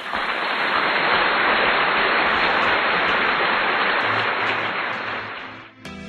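A loud, even rush of noise that cuts in suddenly and fades out near the end, as electronic music with a beat comes in under it.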